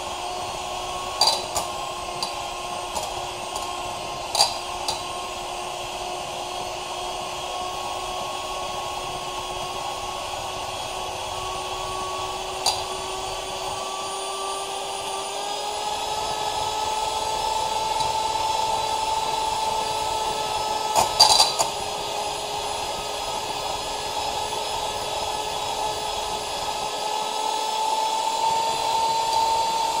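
Silvercrest 300 W electric hand mixer's motor running with a steady whine. Its pitch rises about halfway through and again near the end. A few sharp clicks come through, the loudest a short cluster about two-thirds of the way in.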